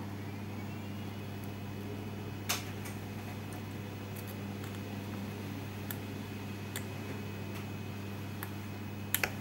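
Steady low electrical hum, typical of mains-powered workshop equipment, with a few faint clicks: one about two and a half seconds in and two close together near the end.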